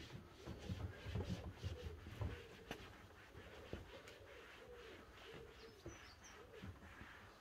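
Pigeon cooing, a series of soft low coos, over faint rubbing of a cloth wiping a plastic van bumper, with a few low knocks in the first couple of seconds.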